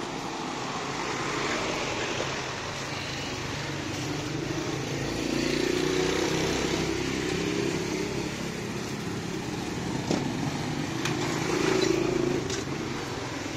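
Street traffic: motorcycles, a motorcycle tricycle and a car passing close by on a narrow road. Their engines swell loudest about halfway through and again near the end.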